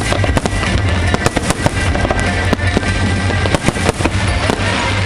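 Fireworks display bursting in rapid succession, many sharp bangs and crackles close together, with music playing throughout.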